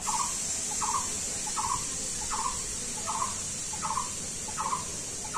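An animal calling in the background: a short call repeated at a steady pace, about every 0.7 seconds, eight times in all, over a steady high hiss.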